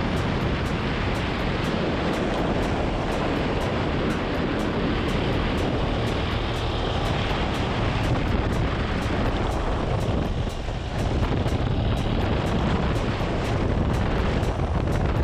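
Steady rush of motorcycle engine and road noise, mixed with wind buffeting the camera microphone while riding, with a brief dip about two-thirds of the way through.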